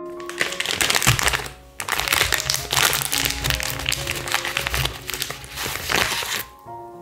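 Plastic spaghetti packet crinkling loudly as hands handle it and slide dry spaghetti out, stopping about six and a half seconds in, over soft background music.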